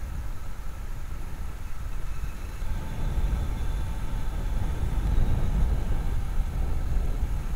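Motor vehicle running on the road, a steady low rumble with some road and wind noise, growing slightly louder about halfway through.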